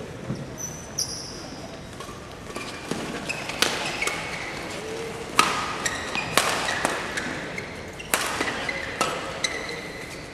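Badminton rally: rackets striking the shuttlecock in sharp cracks every second or so from a few seconds in, with players' shoes squeaking on the court.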